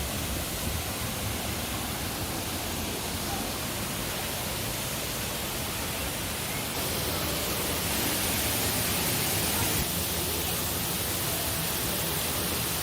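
Large waterfall's loud, steady roar of falling water, the Sgwd yr Eira falls on the River Mellte. It grows a little louder past the middle, then eases back slightly.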